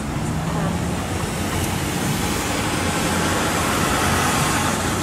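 Steady city traffic and road noise, heard from an open-top convertible.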